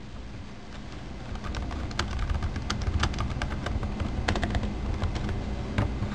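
Computer keyboard typing: irregular key clicks, busier from about two seconds in, over a low steady hum.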